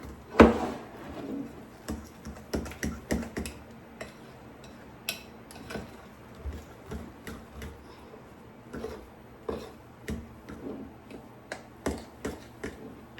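A utensil clinking and knocking against a bowl while mixing, in irregular small taps with one louder knock about half a second in.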